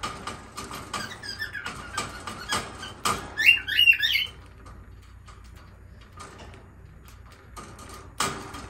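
Lovebird biting and rattling the wire bars of its cage: a run of sharp clicks and clanks, then a quick burst of several high squawks about three and a half seconds in, then scattered quieter clicks and a louder knock near the end.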